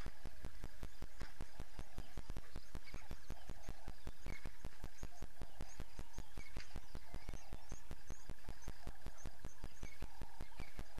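Bush ambience at a waterhole: scattered bird chirps over a steady, fast, even ticking of about six ticks a second and a faint constant high drone.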